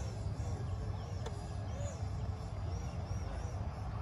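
Distant whine of an E-flite F-16's 70 mm electric ducted fan, wavering up and down in pitch as the throttle is constantly adjusted to hold a slow high-alpha attitude. Under it is a steady low rumble of wind on the microphone.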